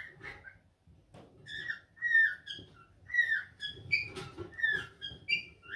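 A bird whistling a run of clear, short notes, many sliding downward, about two a second.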